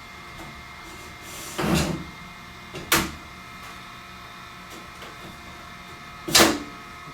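Build plate of a Flashforge Adventurer 3 Lite 3D printer being put back into the printer: a short scrape, then a sharp click, and a louder knock near the end.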